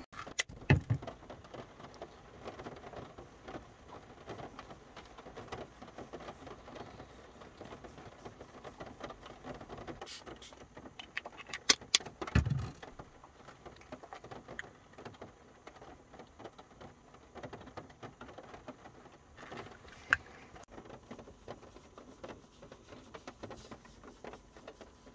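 Rain pattering on a camper van's roof, heard from inside, with a few sharp knocks and clicks of things being handled, the loudest just after the start and around the middle.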